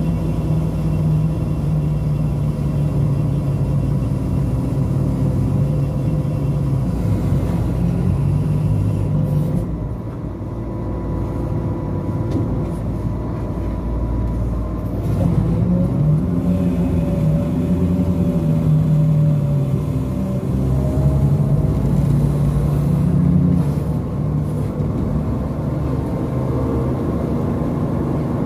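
Hitachi Sumitomo crawler crane's diesel engine running under load as it works a dredging grab bucket, its pitch and loudness rising and falling with the operator's control movements. It eases off about a third of the way in and runs harder through the second half.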